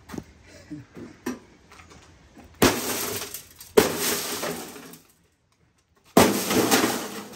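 Glass from a microwave oven door being smashed: three hard blows, each followed by about a second of shattering glass and falling shards.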